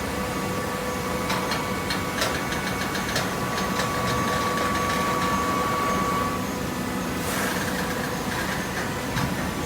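Horizontal hydraulic cardboard baler running: a steady machine hum with a high tone that grows louder and then cuts off about six seconds in. Scattered clicks come in the first few seconds, and a brief hiss about seven seconds in.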